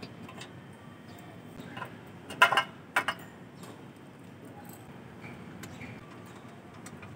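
Small metal objects clinking and clattering as they are handled: a few light clinks, with two louder clatters about two and a half and three seconds in.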